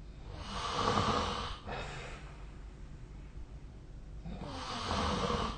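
A sleeping person snoring: two long snoring breaths about four seconds apart, each lasting well over a second, with a low rattle under a breathy hiss.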